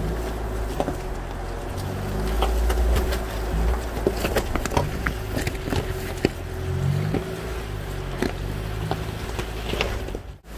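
A vehicle crawling up a rocky dirt trail: a low engine rumble with many short clicks and knocks from tyres on loose rock. It cuts off suddenly near the end.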